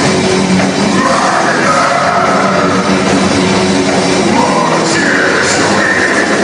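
Loud live death metal played by a full band, distorted guitars and drums dense and unbroken, with sliding high notes over the top.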